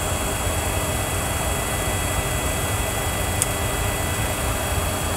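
Steady rumble and hiss of a Boeing 737 flight simulator's cockpit sound: both engines running at idle on the ground, with a faint click about three and a half seconds in.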